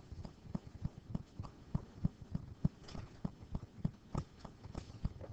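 A stylus or pen tapping and knocking on an interactive whiteboard while numbers are hand-written: irregular light knocks, about three or four a second.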